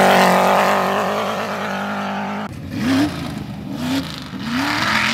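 Off-road race buggy engines. The first runs at steady high revs, loudest at the start, then cuts off abruptly about two and a half seconds in. Another buggy's engine then revs up in four quick rising surges.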